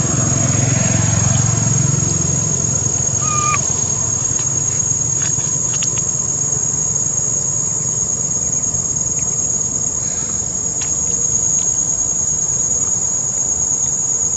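A steady, high-pitched insect drone, unbroken throughout. Under it there is a low rumble, strongest in the first couple of seconds, and about three and a half seconds in a brief chirp.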